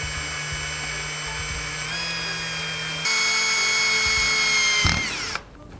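Cordless drill running as it bores a small pilot hole into a metal footpeg bracket: a steady motor whine that rises in speed and loudness about three seconds in, then winds down and stops near the end.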